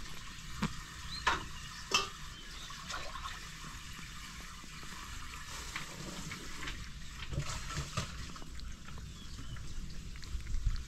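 A cat chewing and mouthing a small scrap of meat: wet smacking clicks, the sharpest few in the first two seconds, then softer irregular ticks.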